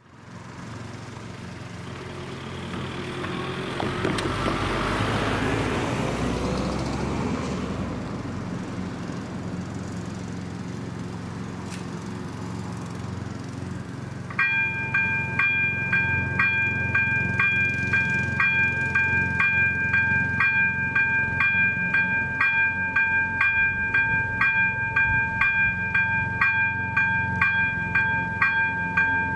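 A car passes over the level crossing, its tyre and engine noise swelling and then fading over the first several seconds. About fourteen seconds in, the crossing's AŽD 97 warning signal starts ringing its electronic bell, about two even strokes a second, warning of an approaching train.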